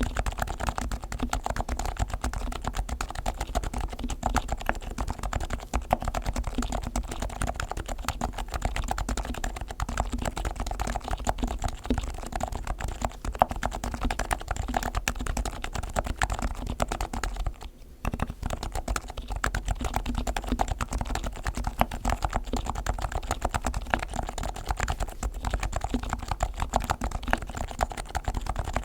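Leopold FC660C silent Topre keyboard being typed on in a fast, continuous run of soft keystrokes, its springs and sliders fully lubricated and its case foam-damped. The typing pauses briefly a little past the middle.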